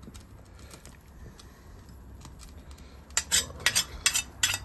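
A metal ladle clinking against a pan of stew as it is stirred: about five sharp clinks close together in the last second and a half, over a low steady hum.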